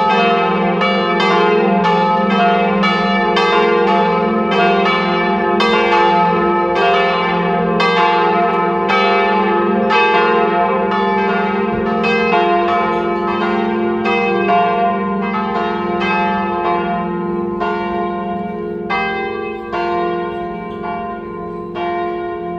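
A ring of three swinging church bells, the largest tuned to F3, sounding together in a full peal (distesa): overlapping strikes, roughly two a second, with long ringing tones. This peal of all the bells is the call rung fifteen minutes before Mass. Toward the end the strikes come further apart and the ringing grows quieter.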